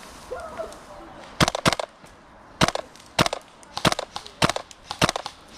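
Airsoft gun firing: a quick cluster of shots about a second and a half in, then single shots at a steady pace of a little under two a second.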